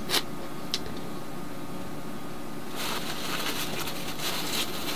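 Hand work on a sailboat's diesel fuel system, bleeding out air and filling the fuel filters. Two light clicks come first, then from about three seconds in a soft, irregular squishing and crackling.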